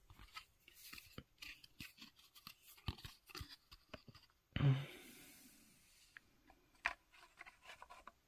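Handling of cardboard View-Master picture reels and a plastic View-Master viewer: small clicks, rubbing and scratching, with one louder dull thump about four and a half seconds in and a sharp click near seven seconds.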